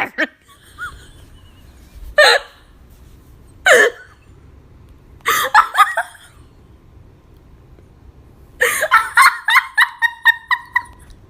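A high-pitched voice makes a few short hiccup-like yelps, then about 8.5 seconds in a run of rapid, evenly spaced laugh-like pulses that fall slightly in pitch.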